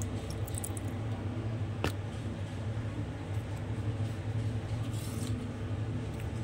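A steady low hum, with one sharp click about two seconds in.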